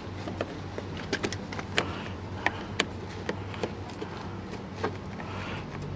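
Irregular light clicks and taps of hard plastic, about a dozen, as a Toyota RAV4's plastic door trim panel is handled and its clips and fittings knock, over a low steady hum.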